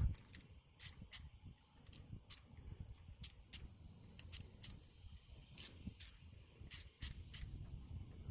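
Light, irregular clicks and taps of a screwdriver and small screws against a Chevy TBI injector pod as it is put back together, about one or two clicks a second over a low rumble of handling.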